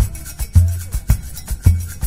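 Background music with a steady beat: a deep bass note about once a second over crisp clicking percussion and short sliding synth tones.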